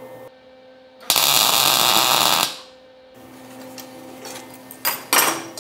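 Welding arc laying a single tack weld of about a second and a half, joining a steel receiver tube to a steel wheel plate. It is followed by a couple of sharp clinks of metal being handled near the end.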